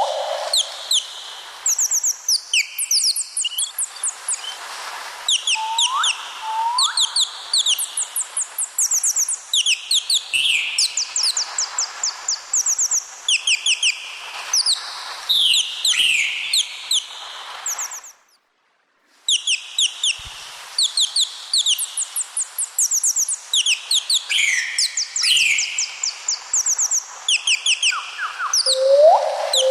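A flock of small parrots chirping continuously in quick, overlapping high-pitched notes, with a few lower rising calls mixed in. The sound cuts out completely for about a second partway through, then resumes.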